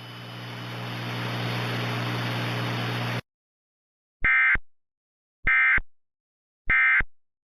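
Static hiss with a low hum, swelling slightly and then cutting off abruptly, followed by three identical short warbling data bursts about a second apart: the Emergency Alert System's SAME end-of-message (EOM) tones that close an alert.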